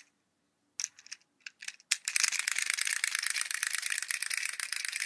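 Clockwork wind-up chicken toy walking on a hard floor: a few short clicks, then from about two seconds in its spring-driven mechanism runs with a fast, even clicking rattle that cuts off suddenly at the end.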